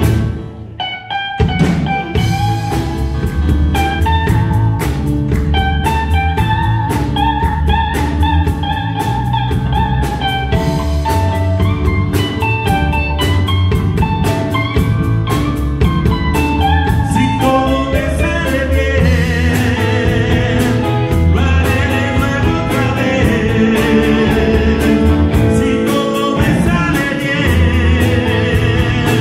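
A live blues-rock band plays: electric guitars, keyboard, drum kit, saxophone and violin, with a lead vocal. About half a second in, the band drops out briefly, then comes back in and plays on.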